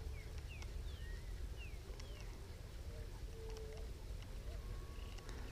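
Faint bird calls: several short falling chirps, with a few lower drawn-out notes, over a steady low rumble.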